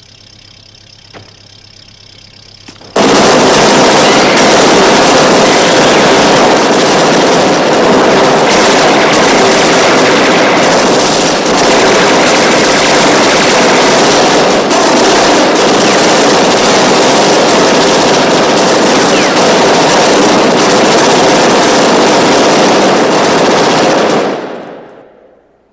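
Film-soundtrack gunfire: a dense, unbroken barrage of many guns firing at once, starting suddenly about three seconds in. It stays loud for some twenty seconds, then fades out near the end. This is a posse's ambush volley on two people in a car.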